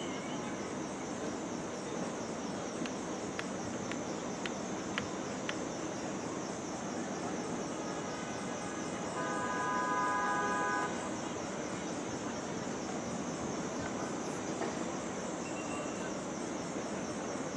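Busy city street ambience: a steady mix of traffic and crowd noise, with a few sharp clicks a few seconds in. Near the middle a vehicle horn sounds one held note for about three seconds.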